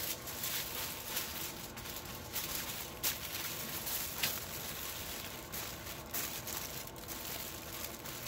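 Aluminium foil crinkling and rustling as hands fold and crimp it around a rack of ribs, with a few sharper crackles.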